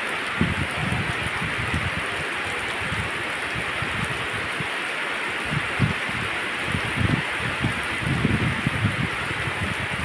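Heavy rain pouring steadily onto a wet road and waterlogged grass: a dense, even hiss, with irregular low bumps scattered through it.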